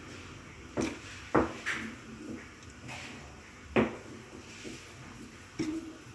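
About five sharp knocks and clinks of a plate and hand against a stainless-steel steamer pot as pieces of butter are dropped onto steamed vermicelli and worked in by hand.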